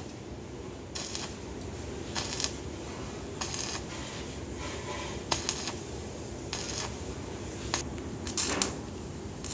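Thin sheet-metal exhaust parts being handled and fitted together: a string of short scraping and clinking noises, about one a second, with a few sharp clicks, over a steady low hum.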